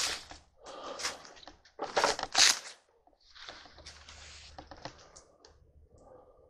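Footsteps crunching over debris on a floor: a few uneven crunches, the loudest pair about two seconds in, followed by softer shuffling and rustling.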